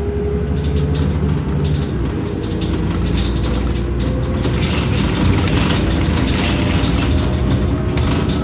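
Cummins ISM diesel engine and ZF automatic transmission of a 2007 New Flyer D40LF city bus under way, heard inside the cabin: a steady low drone whose pitch climbs slowly, with road noise growing from about halfway through. Body panels and fittings rattle throughout.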